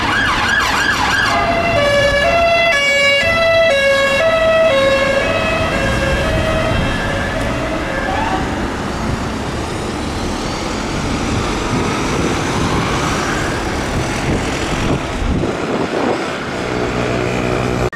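UK police car siren sounding while responding through traffic. It starts as a fast warbling yelp, then switches to an alternating two-pitch tone that steps down in pitch as the car passes. It then continues as a fainter wail under traffic noise.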